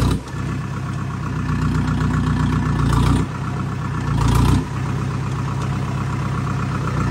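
Vehicle engine running steadily, with two brief louder surges about three and four seconds in.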